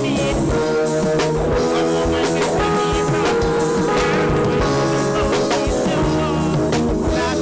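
Live band music on stage: drum kit with steady beats, sustained keyboard notes and electric guitar.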